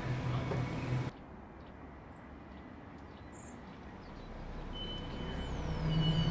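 Street ambience with a low traffic rumble cuts off about a second in to quiet room tone with a few faint taps. An eerie horror-film drone then swells slowly, with a high steady tone and falling whistling sweeps near the end.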